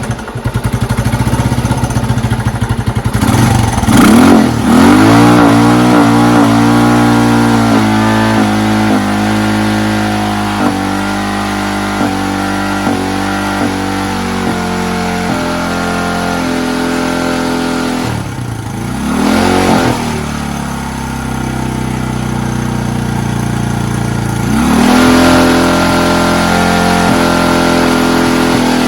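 Honda TLR200 trials bike's four-stroke single-cylinder engine running: idling, then revved briefly three times, each time falling back to a steady idle.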